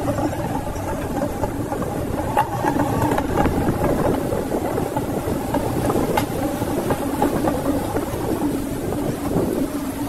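Engine of an off-road vehicle running steadily as it drives slowly along a rocky stream-bed track, with occasional knocks from the rough ground.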